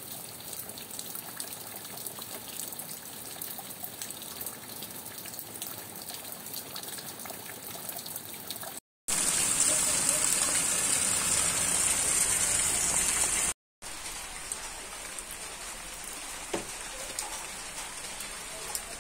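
Steady rain falling, in three separate stretches with brief dropouts between them. The middle stretch, about four seconds long, is clearly louder and hissier, heavy rain on a street; the outer stretches are quieter rain and dripping from a roof edge.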